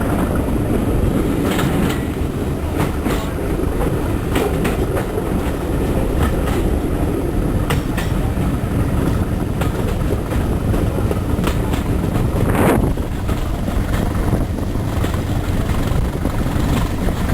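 Train running along the track: a steady rumble with wheels clicking over rail joints roughly once a second, and a brief louder rush of noise near the end.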